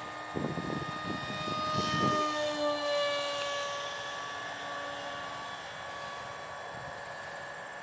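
Electric motor and 6x4 propeller of a radio-controlled model jet whining in flight; the pitch drops about two to three seconds in, then holds steady. Gusts of wind rumble on the microphone in the first two seconds.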